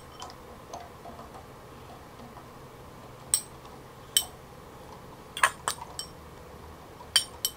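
Metal fork clinking against a glass bowl while diced cheese is scraped out. A few sharp, ringing clinks start about three seconds in and come more often near the end.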